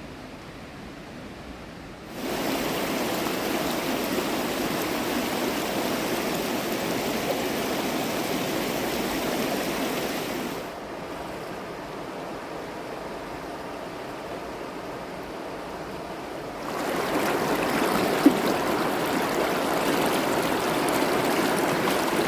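Rushing river water, a steady hiss-like rush of water over rocks. It jumps abruptly in loudness about two seconds in, drops near eleven seconds and rises again near seventeen. There is one brief knock about eighteen seconds in.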